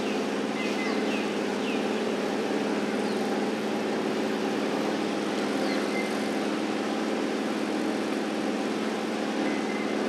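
A steady low rumbling background noise, even throughout, with a few faint short high chirps about a second in and again a few seconds later.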